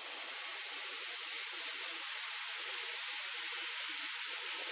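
Pancake batter sizzling with a steady hiss as it is poured into a hot nonstick frying pan.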